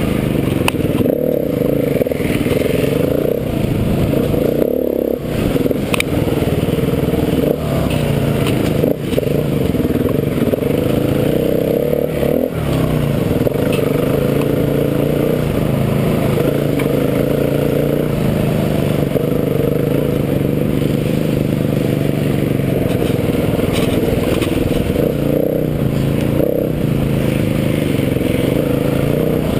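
KTM 350 EXC-F single-cylinder four-stroke dirt bike engine on the trail, its pitch rising and falling with the throttle and dropping briefly a few times as the rider rolls off. Brief clicks and scrapes from brush and ground hitting the bike come through over the engine.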